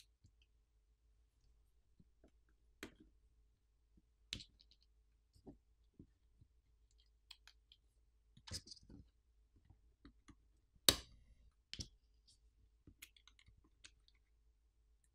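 Faint, irregular clicks and taps of small repair tools against a Google Pixel 8a's metal and plastic internal parts as it is taken apart, with one sharper click about eleven seconds in.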